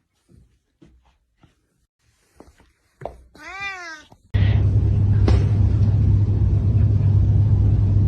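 A cat meows once, a single drawn-out call, after a few faint clicks. About four seconds in, a loud steady noise with a deep hum starts suddenly and runs on.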